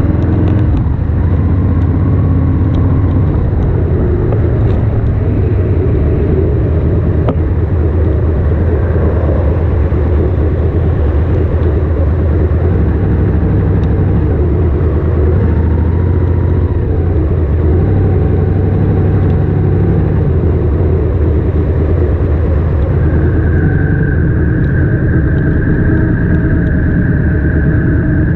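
Ducati Monster S2R's air-cooled L-twin engine running on the move, a steady low rumble under road and wind noise on the wet road. About five seconds before the end, a steady higher whine joins it.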